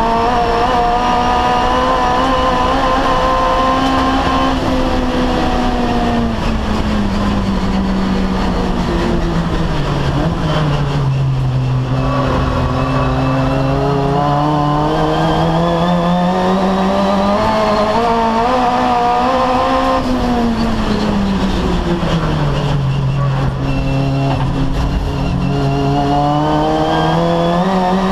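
Turbocharged Mitsubishi 4G15 four-cylinder race engine heard from inside the car's stripped cabin, driven hard on track. The engine note holds high, falls away under braking and a downshift, climbs as the car accelerates out of the corner, dips once more, then rises again near the end.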